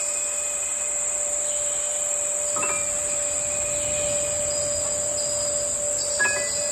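Steady high-pitched chorus of rainforest insects, over a held low tone. A couple of short ringing notes sound about two and a half seconds in and again near the end.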